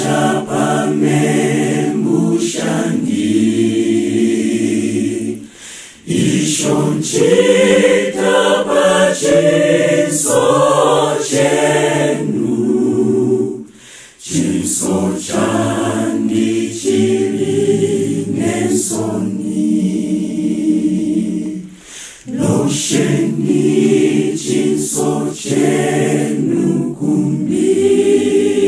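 A choir singing a cappella in several-part harmony, in phrases with short breaks between them about every eight seconds.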